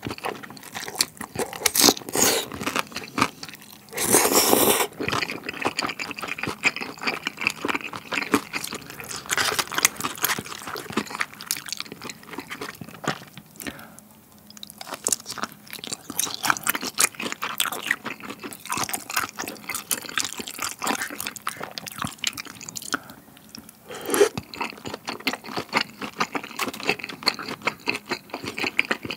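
Close-miked eating sounds: thick udon noodles in spicy tteokbokki sauce slurped up, then steady chewing with many small wet mouth clicks, and bites of chewy glutinous-rice-battered fried squid. There is a louder slurp about four seconds in.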